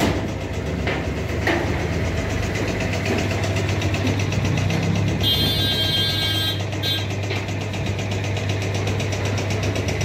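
Steady low machine hum, engine-like and even throughout. About five seconds in, a high electronic beeping tone sounds for about a second and a half.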